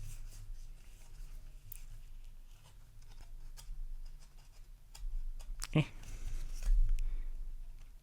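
Trading cards and a foil booster-pack wrapper being handled: soft rustling and light card clicks, with a sharper, louder handling noise about six seconds in.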